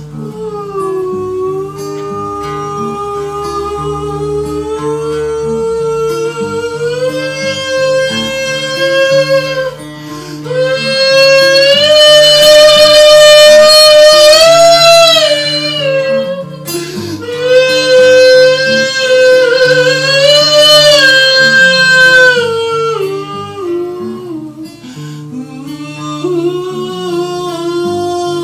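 Acoustic guitar strummed steadily under a man's voice singing long, held, wavering notes; the voice swells loudest twice in the middle and eases off near the end.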